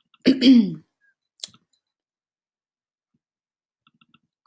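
A woman's short cough about half a second in, followed by a tick and then faint mouse clicks, three in quick succession near the end, as the font-size button is clicked.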